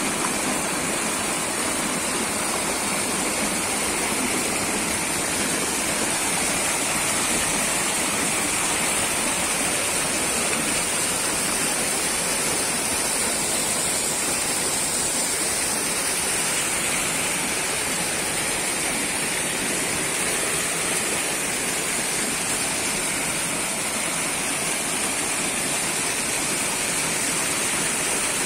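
Small waterfall on a mountain stream spilling over a rock ledge into a pool: a steady, unbroken rush of falling and splashing water.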